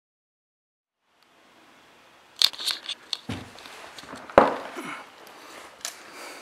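Dead silence for about a second, then a scatter of light clicks and knocks in a room, the sharpest about four and a half seconds in.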